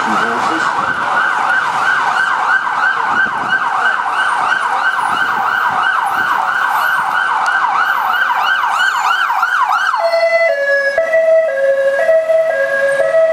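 Metropolitan Police car siren on a rapid yelp, about four sweeps a second, switching about ten seconds in to a two-tone high-low wail.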